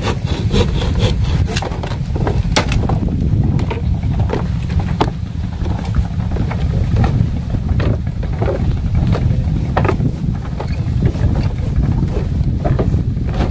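Footsteps knocking irregularly on bamboo raft planks, over a steady low rumble.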